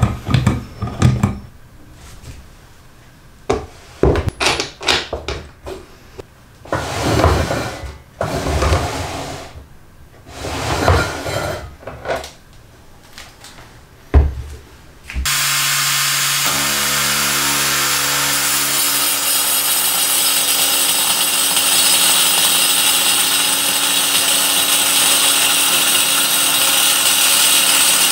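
Table saw running with its spinning blade cutting into a rotating wooden blank, shaving it round into a dowel. It starts suddenly about halfway through and runs loud and steady after several shorter bursts of noise and knocks.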